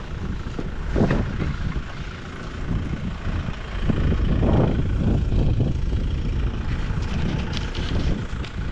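Wind buffeting the microphone: a low, uneven rumble that grows louder about four seconds in.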